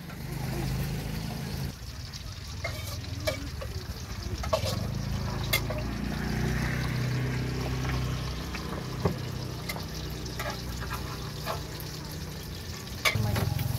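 Wok cooking: a metal spatula scraping and clinking against a steel wok in scattered strokes, over a steady low hum.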